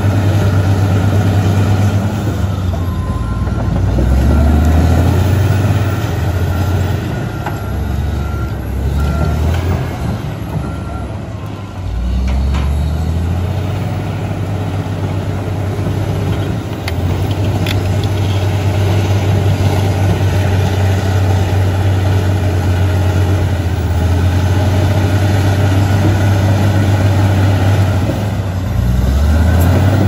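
Komatsu D85EX bulldozer's diesel engine running loud and steady as the dozer reverses and pushes forward, its engine note dipping and recovering several times as the load changes.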